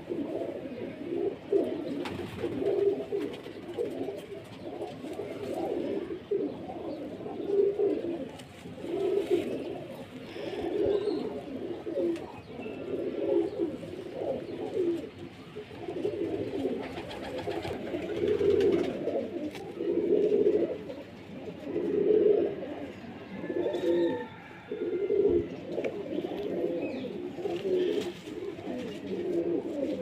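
Domestic pigeons cooing over and over, low soft calls that repeat every second or two.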